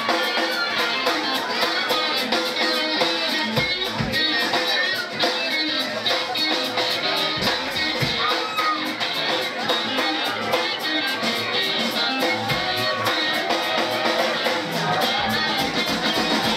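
A live rock trio playing: guitar lines over a drum kit keeping a fast, steady beat on the cymbals, with occasional low drum or bass thumps.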